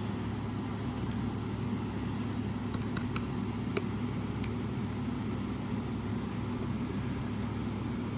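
Steady low background hum, with a few light, sharp clicks and taps of plastic speaker parts being handled and pried at, scattered through the first five seconds.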